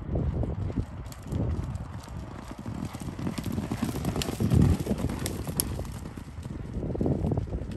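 Three racehorses galloping past, their hoofbeats drumming on the gallop track, loudest about four to five seconds in as they pass closest, then fading as they move away.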